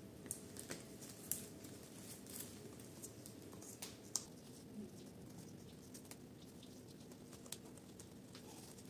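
Faint rustling of bougainvillea leaves and stems being handled, with scattered light clicks and ticks, the sharpest about four seconds in.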